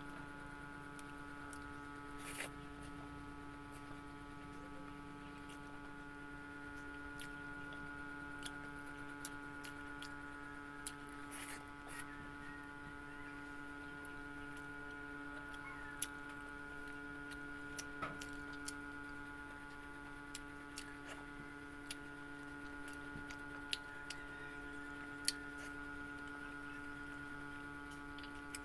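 A steady electrical hum of several pitched tones. Over it come scattered soft clicks and squishes of chewing and of fingers mixing rice and tofu on a wooden board.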